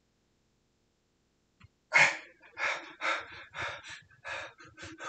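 A man breathing hard from the exertion of weighted squats: a quick run of heavy, gasping breaths, about two a second, starting about two seconds in.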